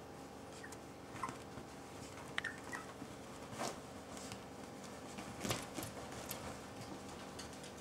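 Small Italian greyhounds playing on a bed: faint scuffling and pattering of paws on the bedspread, with a few short high squeaks in the first half and a louder scuffle about five and a half seconds in, over a steady low hum.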